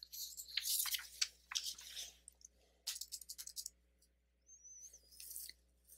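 Computer keyboard keys clicking as a word is typed: a run of quick, light taps through the first three and a half seconds, then a few fainter taps near the end.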